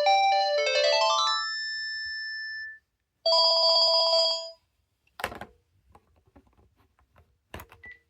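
Panasonic KX-TGA651E cordless phone handset playing a polyphonic ringtone melody that ends in a quick rising run of notes and held notes fading out. A second short chord of tones sounds for about a second, followed by a few clicks, two of them louder.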